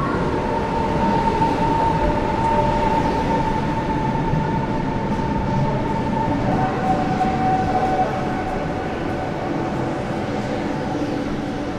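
Ivolga electric commuter train running, heard from inside the passenger car: a steady rumble of wheels and car body with an electric motor whine that slowly falls in pitch and drops a step about seven seconds in.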